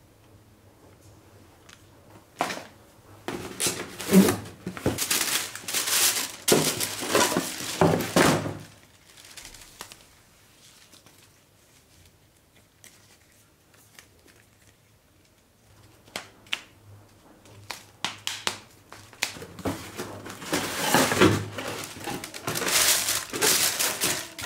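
Paper packaging and tissue paper rustling and crinkling as items are handled and unwrapped in a cardboard box, in two stretches: one starting about two seconds in, and one building again from about sixteen seconds to the end, with a quiet gap between.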